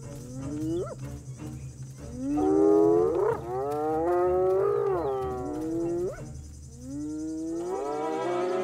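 Spotted hyena whooping: a series of long calls that rise in pitch, several ending in a sharp upward sweep, over a steady low hum.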